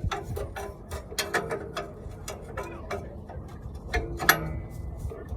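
Irregular metallic clicks and clanks of a hand tool worked on a seized exhaust O2 sensor, with a sharper knock about four seconds in.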